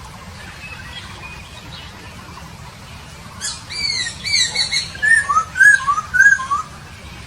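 Poksay Papua songbird singing: a run of bright, arching whistled notes about three and a half seconds in, then three repeated two-note phrases, each a higher note dropping to a lower one.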